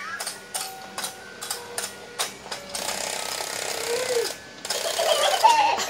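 Toy fishing game's mechanism clicking and rattling in quick, uneven ticks.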